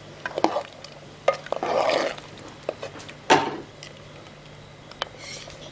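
Metal ladle stirring curry in a pressure cooker: liquid swishing with several clinks and knocks of the ladle against the pot, the loudest about three seconds in.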